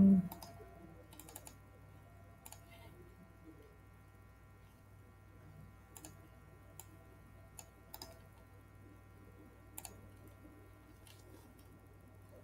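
Faint, scattered computer keyboard keystrokes, a few irregularly spaced clicks, over a steady faint hum.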